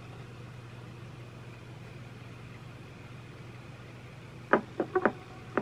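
National RQ-225 portable cassette recorder playing a tape through its small speaker: a low steady hum, then from about four and a half seconds in a run of sharp percussive notes.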